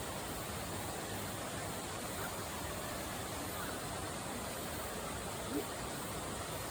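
Steady rushing of a mountain stream, an even hiss with no changes, and one faint brief sound about five and a half seconds in.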